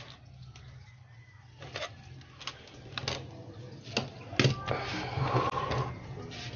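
Scattered clicks and knocks of plastic parts and tools being handled on a workbench, over a steady low hum.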